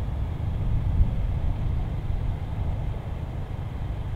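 Low, steady rumble of a car with no clear engine note, slowly fading.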